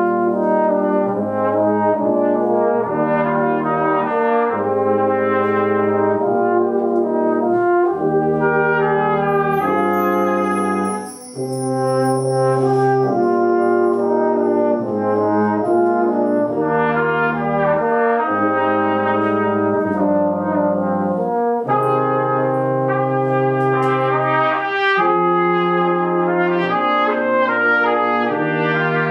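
Brass quintet of two trumpets, French horn, trombone and tuba playing an arrangement of a TV theme song in sustained chords, the notes changing every second or two, with a brief pause between phrases about eleven seconds in.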